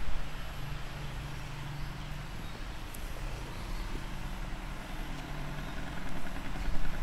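A low, steady engine hum with a slightly wavering pitch, like a vehicle running in the background.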